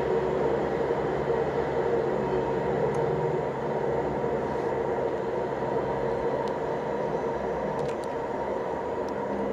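Freight train rumbling on out of sight after passing, a steady rumble with a constant hum that eases down slightly.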